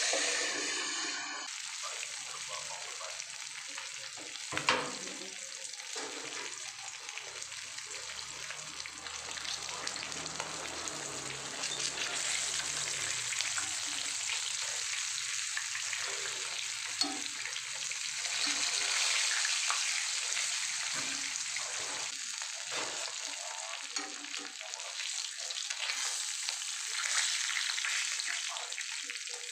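Fish frying in hot oil in a pan: a steady sizzle and crackle. There is one sharp clink about five seconds in, and light clicks later as metal tongs touch the pan.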